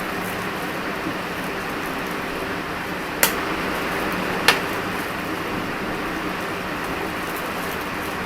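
Steady room hiss, with two sharp clicks about a second apart near the middle.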